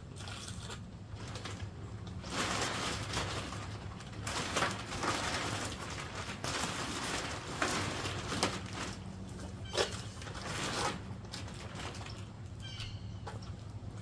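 Truck bed tent fabric rustling in stretches of a second or two as it is handled, with a few sharp knocks and clicks among them, over a low steady hum.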